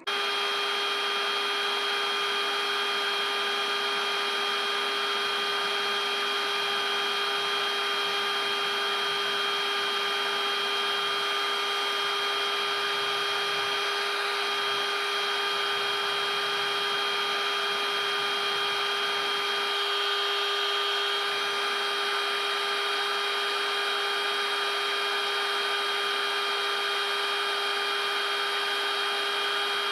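Heat gun blowing steadily with an even motor whine and rushing air, heating the scooter gearbox case so a bearing can be slipped into its bore.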